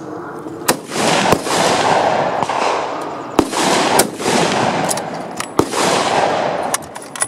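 Gunfire at a shooting range: a few sharp single shots, and three longer stretches of rapid, overlapping fire of one to two seconds each. Among the single shots is the bolt-action M1903 Springfield rifle being fired, and its bolt is then worked.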